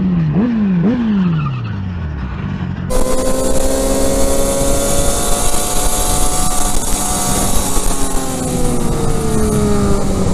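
Motorcycle engine heard from the rider's own bike: two quick rises in revs, then a long fall in pitch as it slows. After a sudden change of scene, a sportbike engine runs at a steady pitch that slowly drops, over a strong rush of wind.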